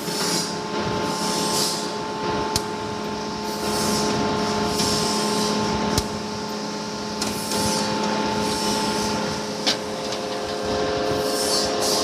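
Spot welding machine at work on motorcycle fender parts: a steady hum under repeated short hissing bursts, with three sharp clicks.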